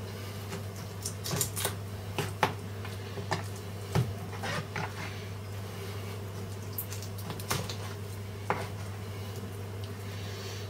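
Cold Steel Spectre knife cutting through raw chicken joints, its blade clicking and knocking irregularly against bone and the plastic cutting board, with a steady low hum underneath.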